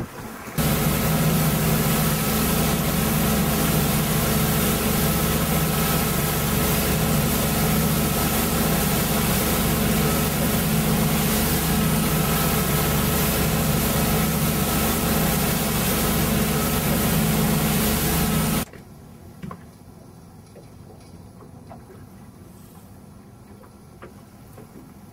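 Fishing boat's engine running at speed, steady, with rushing wind and spray over it. About 19 seconds in it cuts off abruptly to a much quieter background.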